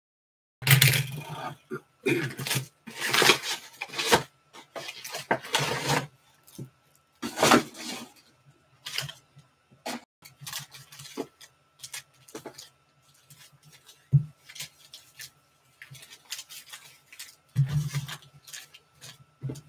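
Cardboard trading-card hobby boxes being slit open, and foil-wrapped card packs pulled out and handled: an irregular run of crinkling, rustling and tapping.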